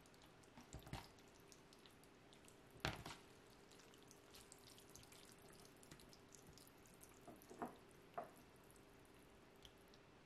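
Faint wet handling sounds of black bean sauce plopping out of a plastic takeout container onto noodles, then noodles being mixed and lifted with chopsticks in a plastic bowl. There are a few soft squishes and light knocks, the strongest about three seconds in, over a faint steady hum.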